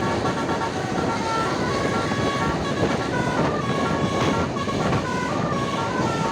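Basuri 'telolet' bus horn playing a tune of short notes that step up and down in pitch, over a loud rush of road noise.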